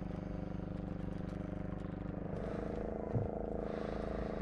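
Fishing boat's engine running steadily with a fast, even throb, and a single low thump about three seconds in.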